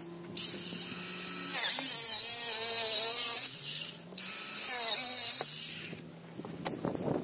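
Electric power drill running in two bursts, the first about three seconds long and the second about two, its motor pitch wavering as it comes under load.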